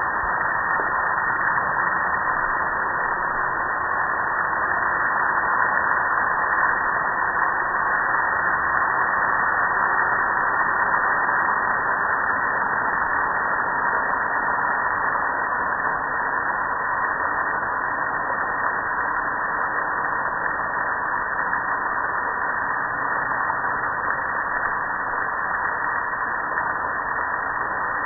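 Water pouring over a gas grill and splashing down its lid and front panel onto concrete: a steady rushing hiss.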